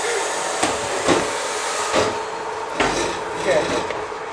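Hard plastic chairs knocking and clattering as they are handled, a handful of sharp knocks spread a second or so apart.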